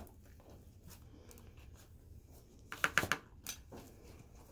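Hands kneading sticky glue-and-sand slime with instant snow mixed in, in a plastic bowl: faint sticky crackling and rustling, with a quick cluster of sharp crackles about three seconds in.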